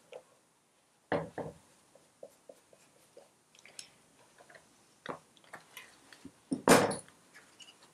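Hand work on a Citroën 2CV flat-twin engine: scattered clicks and knocks as a screwdriver takes out a last screw and the sheet-metal cooling shroud is worked loose. Two knocks come about a second in, and the loudest metal clank about seven seconds in.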